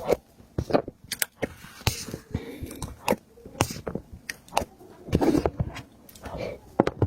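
Close-miked chewing of soft, sticky food: irregular wet mouth clicks and lip smacks, with a louder run of chewing about five seconds in.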